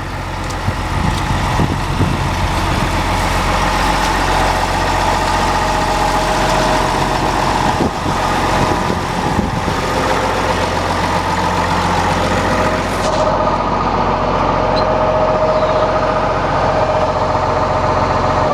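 John Deere 544 wheel loader's diesel engine idling steadily. It grows louder in the first couple of seconds, then drops away at the very end as it is shut off.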